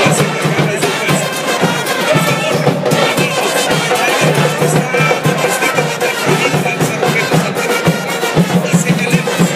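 Football supporters' group singing a chant in the stands, carried along by drums and wind instruments.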